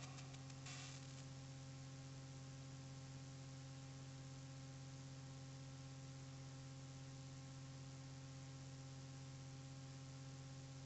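Faint steady electrical hum with a light hiss, the last trace of the music dying away in the first second.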